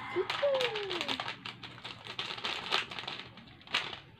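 Small polystyrene foam beads being shaken out of a plastic bag into a plastic bowl: a run of small, irregular clicks and patters. A short falling squeak comes about half a second in.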